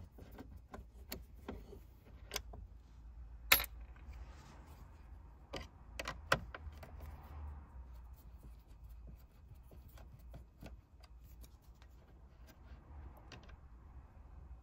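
Screwdriver working T15 Torx screws out of a car's dashboard head-unit mounting: faint, scattered metal clicks and ticks, with a few sharper clinks about three and a half seconds in and again around six seconds in.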